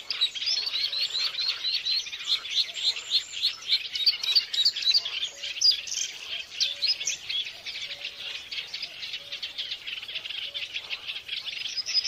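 Many small birds chirping in a dense, continuous chorus of quick, high chirps.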